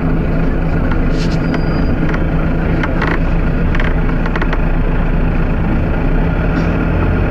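Volvo B9TL double-decker bus's diesel engine running with a steady low drone, with a few short rattles or clicks in the first half.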